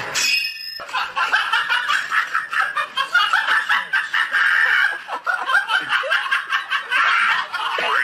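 High-pitched laughter in quick, repeated giggles that carries on almost without a break, starting about a second in.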